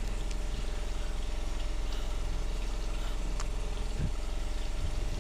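An engine running steadily at idle: an even, low hum, with a faint knock about four seconds in.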